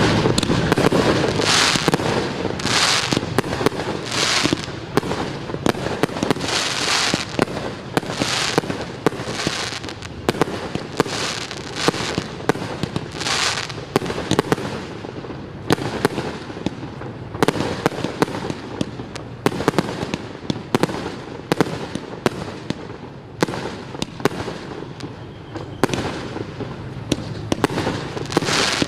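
Fireworks going off in a rapid barrage: many sharp bangs, with repeated short bursts of hissing crackle that thin out about halfway through.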